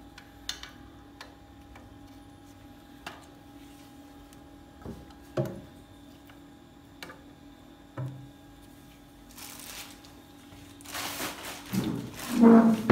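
Metal snake tongs clicking and knocking now and then against the tiled floor and battery, over a faint steady hum. Near the end, loud rustling and a few thumps of handling.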